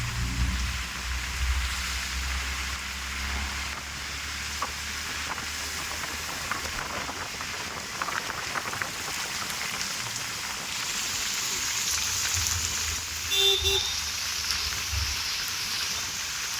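Heavy rain falling steadily with an even hiss. A low rumble runs under it for the first few seconds and again near the end, and there is a brief, louder high sound about thirteen seconds in.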